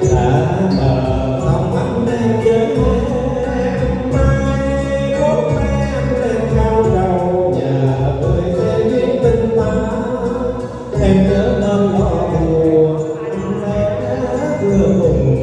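A Vietnamese tân cổ song: a voice singing with wavering, bending pitch over instrumental accompaniment.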